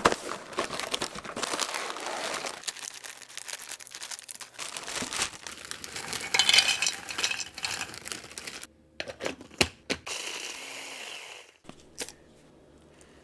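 Rustling and crinkling of a cardboard cookie box and the plastic bag of vanilla wafers inside it, with the bag being cut open with scissors. Near the end come a few sharp plastic clicks from a small food chopper's bowl and lid.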